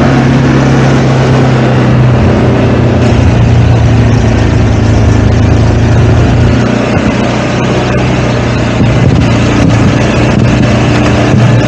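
ATV engine running steadily as the quad travels along a rough dirt forest road, with a wash of road noise. The engine note eases off a little past the middle and comes back up near the end, with a few sharp knocks from the rough track.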